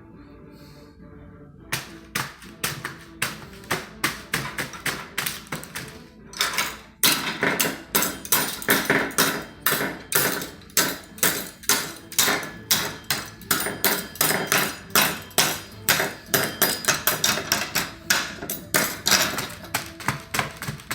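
A long series of sharp taps or knocks, about three a second. They start about two seconds in and get louder and denser from about seven seconds in.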